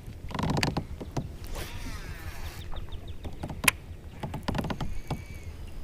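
Handling sounds in a fishing kayak: scattered knocks, clicks and creaks of the hull and gear, with a short whir about a second and a half in.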